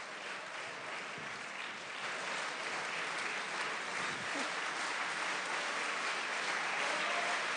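Audience applauding, the clapping growing a little louder about two seconds in.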